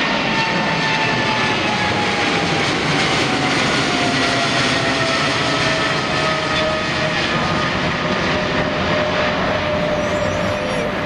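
Boeing 777's twin GE90 turbofan engines at climb power just after takeoff: a steady, loud jet roar with a whine that slowly falls in pitch as the aircraft climbs away.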